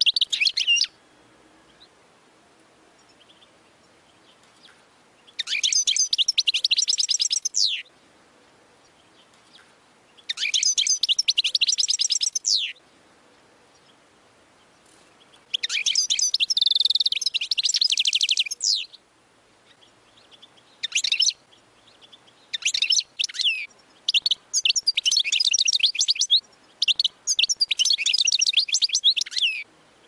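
European goldfinch singing: bursts of rapid, high twittering song, each two to three seconds long, with pauses of a few seconds between them. Near the end the phrases come closer together.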